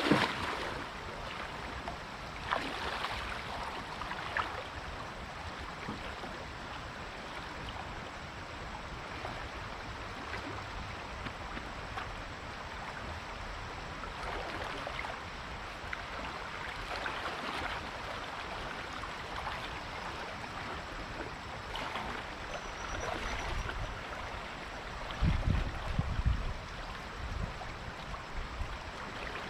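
Water sloshing and splashing around a person wading waist-deep, over steady flowing water, with a few louder surges. Low thumps near the end are the loudest sound.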